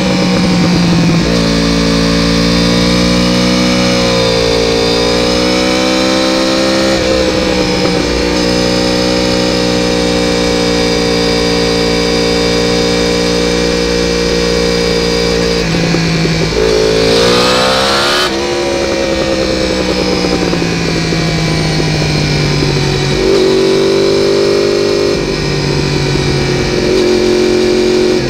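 Yamaha R1 motorcycle's inline-four engine running steadily at low revs on a slow lap at around 100 km/h, easing down in speed. About 17 seconds in the revs climb briefly, then drop off sharply.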